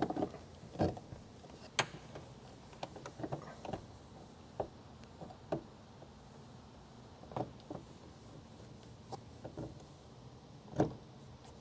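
Irregular clicks and knocks as a 2022 Toyota Tundra side-view mirror is wiggled loose from its mount in the door, with a louder knock near the end.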